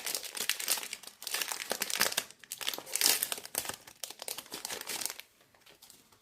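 Crinkling and tearing of a baseball card pack wrapper as a new pack is opened, in dense crackling bursts that stop about five seconds in.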